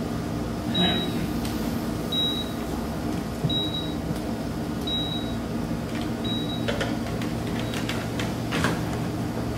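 Heart-monitor beeps from a stage sound effect: five short, high, single-pitched beeps about a second and a half apart over a low steady hum. The beeps stop about six and a half seconds in, and a couple of brief rustling sounds follow.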